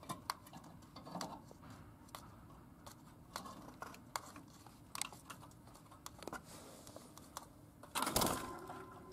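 Lutino budgerigar moving about the paper-lined cage floor: scattered small clicks and taps of its beak and feet on the paper. About eight seconds in, a short loud flurry of wingbeats as it takes off from the floor.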